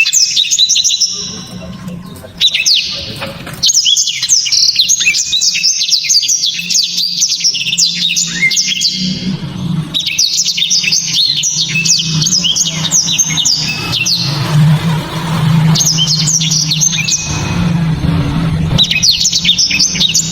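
Blackthroat (black-throated seedeater) singing loud, rapid runs of high, twittering notes in several long phrases broken by short pauses.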